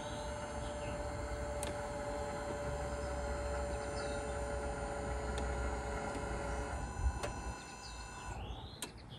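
Hydraulic pump of an AL-KO HY4 motorhome levelling-jack system running with a steady hum as the jacks lift the vehicle for weighing, cutting off about eight seconds in as the lift finishes.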